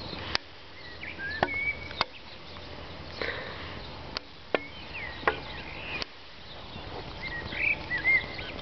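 A horse's hooves knocking on hard ground in about seven sharp, irregular strikes, with small birds chirping, the chirps thickest near the end.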